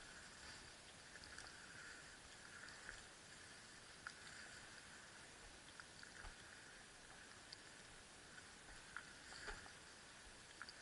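Near silence: faint rustling of dry grass brushing past as the camera moves through tall grass, with a few light ticks.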